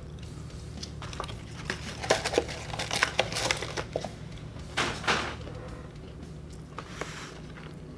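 Paper burger wrapper and cardboard burger box handled by hand, crinkling and rustling in several short crackles over a few seconds, over a low steady room hum.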